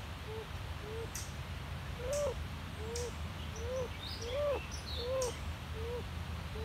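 A bird's soft, low coos: short notes that each rise and fall, repeated about every two-thirds of a second.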